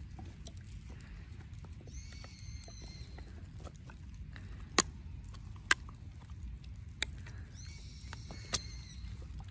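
A Weimaraner chewing a wooden stick, the wood cracking sharply four times in the second half, over a steady low rumble.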